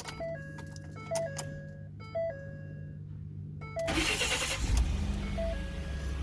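Truck dashboard warning chime sounding in short repeated tones. About four seconds in, the 2012 Ford F-150's starter cranks briefly, and the engine catches and settles into a steady idle: it now starts after its overheated fuse 27 was dealt with.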